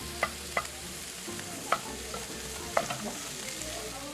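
Sausage meat and mushrooms sizzling steadily in a frying pan, with four sharp, ringing knocks from a utensil working the pan.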